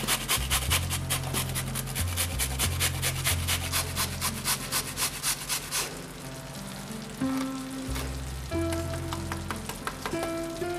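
Zucchini rubbed on a coarse hand grater in quick, even rasping strokes, which thin out about six seconds in, leaving the fish and tomato sauce sizzling softly in the pan, under background music.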